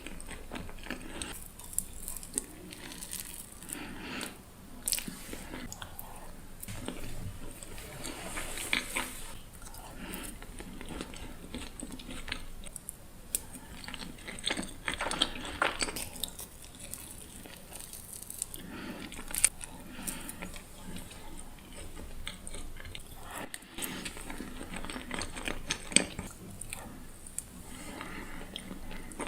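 Close-miked eating of profiteroles: repeated bites and chewing, with many small crisp crunches and mouth clicks.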